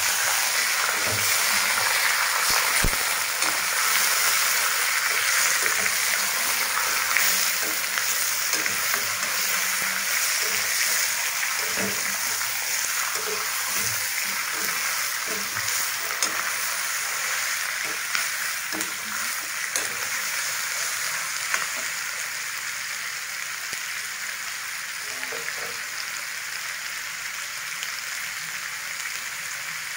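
Raw meat pieces sizzling as they fry in hot oil in a black kadai on a gas burner, with a metal spoon scraping and clicking against the pan as they are stirred. The stirring stops in the last several seconds and the sizzling carries on a little quieter.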